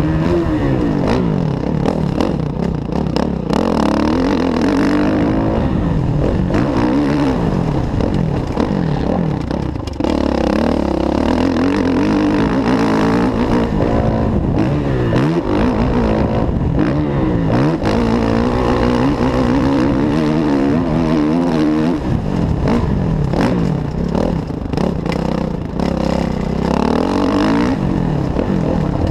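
Kawasaki KX450F's single-cylinder four-stroke engine, heard from on board, revving up and falling back over and over as the rider accelerates and rolls off along the motocross track, with scattered knocks and clatter from the bike on rough dirt.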